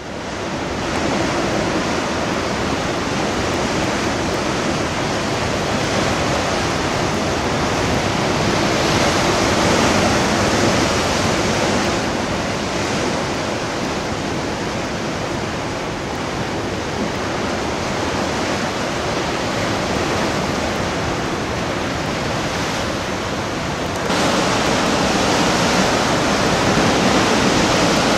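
Ocean surf breaking and washing over a rocky shore: a steady rushing noise that gets louder a few seconds before the end.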